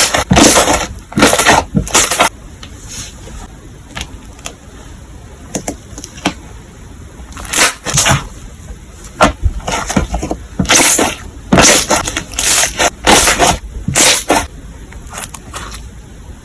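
Slime being handled: squeezed, pressed and poked in short, loud bursts of crisp noise, coming in quick runs of several with pauses between.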